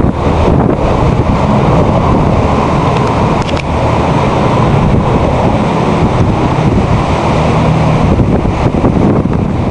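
Strong wind buffeting the microphone, a loud, steady rumble, with the sea's surf beneath.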